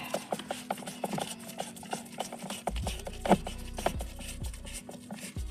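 Irregular clicks and knocks of hand tools and plastic dashboard trim being handled while fasteners are worked loose under a car dash. A low buzz comes in briefly about three seconds in and again near the end.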